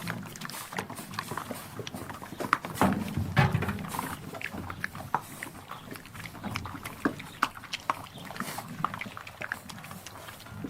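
An animal close up, making irregular short low noises among many small clicks, loudest a few seconds in.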